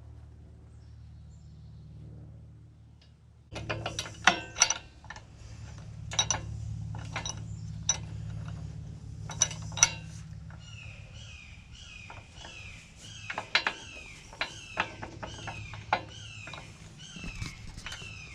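Repeated sharp metallic clinks and knocks, starting a few seconds in, as a steel mounting pin is worked out of a compact tractor's backhoe bracket. The pin is stuck and won't slide out easily, and short squeaks come in later. A steady low hum runs underneath.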